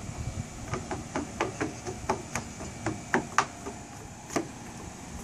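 A child's running footsteps on wooden deck boards: a quick run of sharp knocks, about four a second, that stops past four seconds in.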